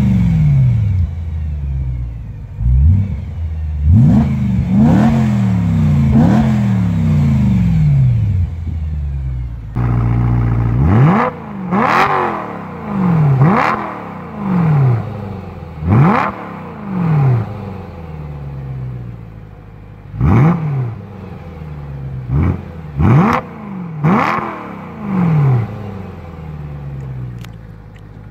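Two BMW M3 S65 4.0-litre V8s revved at standstill for an exhaust comparison: first an E93 M3 Cabrio with an Eisenmann rear silencer, blipped several times; then, about ten seconds in, an E92 M3 coupé with a 'Medium' rear-silencer mod, revved in repeated sharp blips, each rising quickly and falling back to idle.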